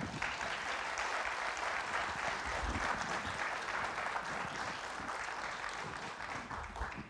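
Audience applauding: many hands clapping together in a steady, dense patter that begins at once and dies away near the end.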